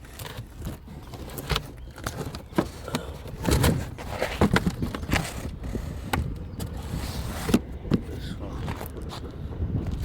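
Irregular metal knocks and clanks of hand work on a car's suspension, fitting a shock absorber into place, over a steady low rumble.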